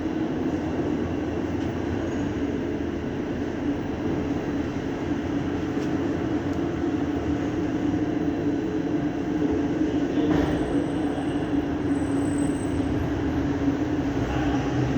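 A steady mechanical rumble with a low hum, growing slightly louder about ten seconds in.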